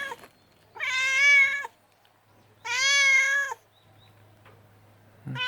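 A mother cat meowing loudly and repeatedly, begging for bread: two long meows of just under a second, each rising and falling in pitch, with another beginning near the end.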